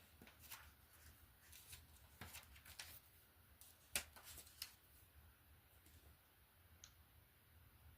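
Faint rustling and scattered light clicks from LEGO pieces and paper being handled, with one sharper click about four seconds in.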